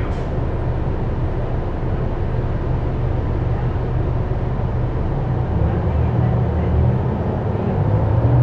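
Gillig Advantage low-floor transit bus heard from inside its cabin while driving: a steady low engine and drivetrain drone with road noise, growing a little louder near the end.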